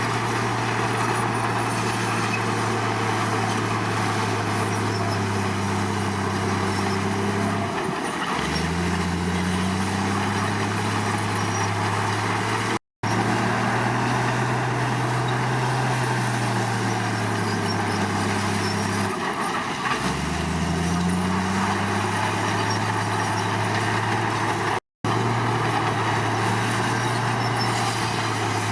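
Komatsu D53 bulldozer's diesel engine running steadily, its pitch dipping sharply about eight seconds in and again about twenty seconds in before climbing back. The sound cuts out for an instant twice.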